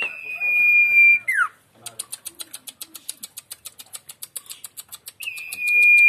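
Caged common iora (sirtu) singing: a long, steady high whistle that ends in a quick downward slide, then a fast run of short ticking notes at about nine a second, then the long falling whistle again near the end.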